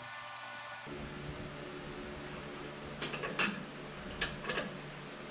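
Hand tools clinking on metal a few times, about three seconds in and again just past four seconds, over a steady hum with a faint high whine.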